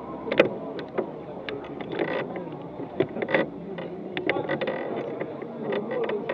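Crowd of a street procession on the move: scattered sharp clicks and knocks over low, indistinct chatter, the band silent.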